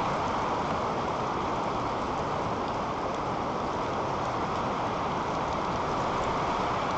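Strong wind blowing against the nest camera's microphone high in the treetop: a steady rushing noise with no breaks.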